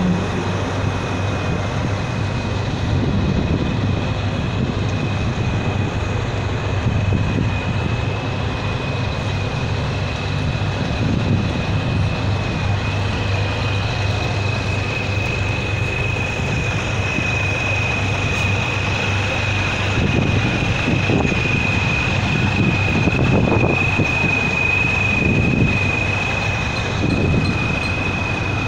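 Heavy diesel truck engine idling steadily with a low rumble, and a thin, steady high-pitched whine running alongside it.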